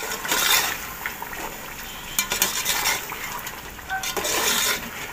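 A metal spoon stirring chicken and potato masala in a metal pot, scraping and clinking against the pot in several strokes, over a sizzle as the masala fries.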